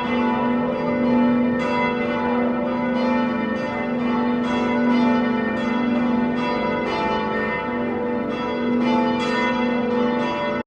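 Church bells ringing, a new strike about every half second over a steady hum, cutting off abruptly at the end.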